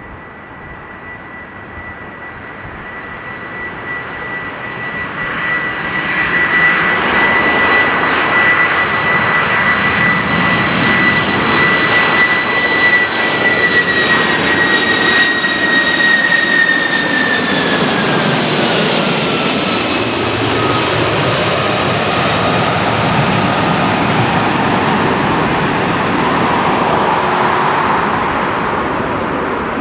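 Boeing 747-400F's four turbofan engines on a low landing approach. The jet noise builds over the first several seconds, then holds loud. A high fan whine slides down in pitch between about 16 and 20 seconds in, as the jumbo passes and moves away.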